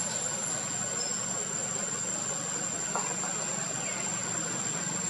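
Steady low hum like an idling engine, with a constant high-pitched tone above it and a faint tick about three seconds in.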